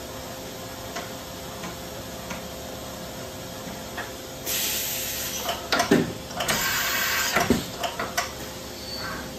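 Fadal VMC 8030 HT CNC vertical machining center running with a steady hum. About halfway through come a few seconds of loud compressed-air hissing broken by clicks and clunks and two short falling sweeps, then it settles back to the hum.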